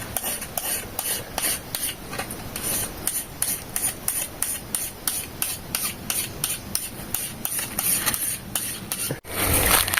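Steel blade of a farm tool being sharpened by hand, a file or stone rasping along the edge in quick, regular strokes, about three a second.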